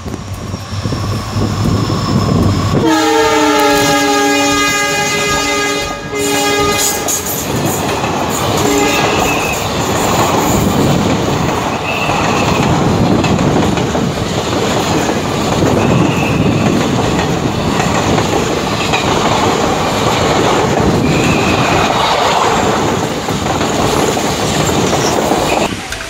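Train on the Konkan Railway line sounding its horn, a chord of steady tones held for about four seconds starting about three seconds in. Its wheels then rumble and clatter steadily along the track as it passes, until the sound drops away near the end.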